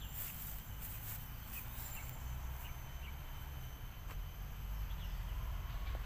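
Outdoor park ambience: a steady high insect drone with a few short bird chirps, over a low rumble on the microphone.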